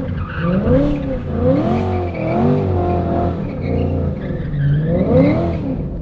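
Supercharged 5.8-litre V8 of a 2014 Shelby GT500 Super Snake revving up and down in repeated surges, its note rising and falling about once a second as the clutch is worked.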